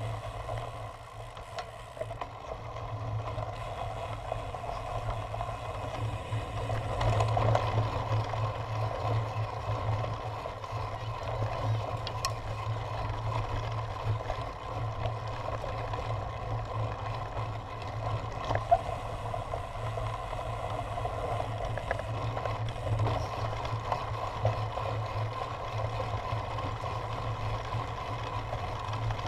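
Riding noise from a bicycle on a dirt and grass cyclocross course: a steady rumble of tyres and wind on the microphone, with a couple of sharp knocks from bumps partway through.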